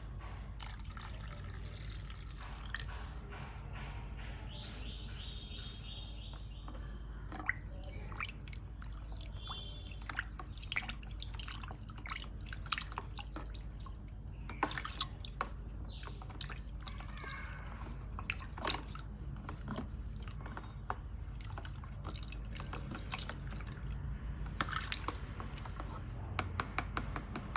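Liquid poured into a plastic tub of soapy water, then the bubble-solution mixture stirred with a wooden spoon: sloshing and dripping, with many short clicks of the spoon against the tub, over a steady low hum.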